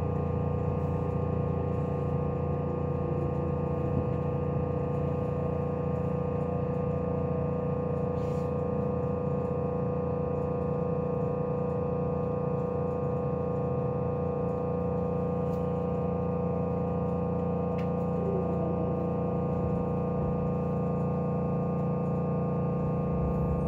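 Steady electrical hum inside a Meitetsu μSKY electric train standing at a station, made up of several constant tones that do not change in pitch.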